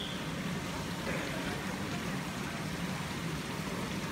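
Steady background noise of an indoor swimming pool hall, with water moving in the pool and faint voices.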